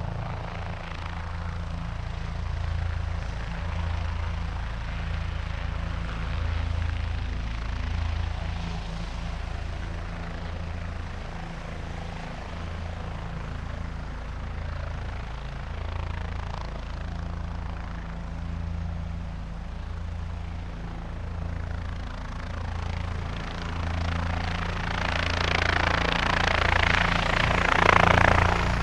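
Helicopter running with its rotor blades beating in a steady low pulse; a louder rush of noise swells over the last few seconds.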